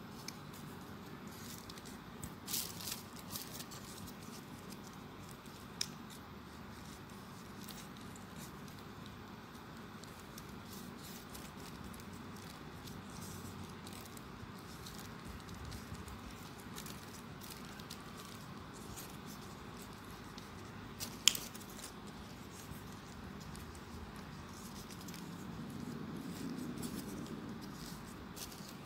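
Folded paper origami units rustling and crinkling as fingers handle them and push them into place, over a steady faint hiss. Scattered short crackles, with one sharp click about three-quarters of the way through.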